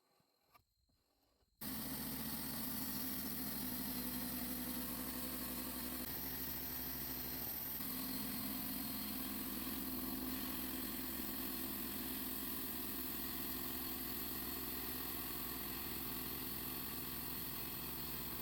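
An engine running steadily at one speed. It cuts in abruptly about a second and a half in.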